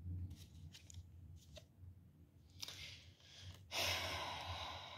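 A few faint clicks, then a breath drawn in and a long sigh out that starts abruptly near the end and fades over about a second.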